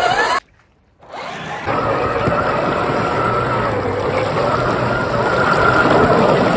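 Scale RC Land Rover 109 Series III crawler driving through shallow water. Its electric motor and geartrain whine steadily over the wash and splash of the bow wave it pushes. The sound cuts out briefly about half a second in, then picks up again.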